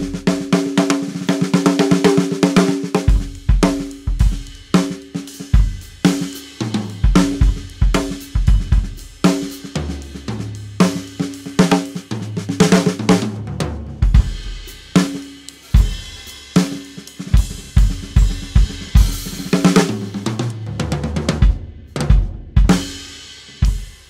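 1970s Ludwig drum kit played solo: busy fills around the toms and snare, with bass drum hits and cymbals. The toms ring with a clear pitch, and the playing winds down to a last stroke that rings out near the end.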